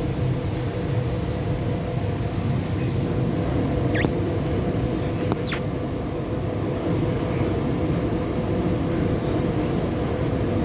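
Passenger train running at speed: a steady rumble with a constant hum underneath, and two short high squeaks about four and five and a half seconds in.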